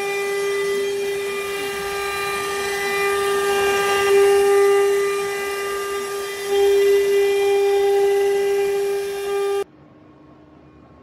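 CNC router spindle whining at a steady high pitch as its carving bit cuts a relief pattern into a wooden panel, the sound swelling slightly as the bit bites harder. The whine cuts off suddenly near the end, leaving only a faint hum.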